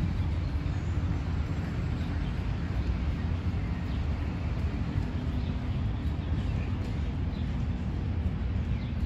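Steady low rumble of city traffic, with faint, scattered bird chirps over it.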